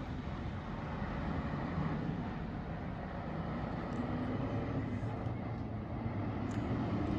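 Low, steady rumble of a vehicle engine with faint droning tones, swelling slightly near the end.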